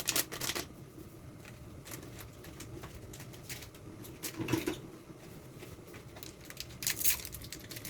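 Light clicks and taps of kitchen utensils while seasoning is added to the pot: a cluster at the start, another about four and a half seconds in and another near seven seconds in, over a faint steady hiss.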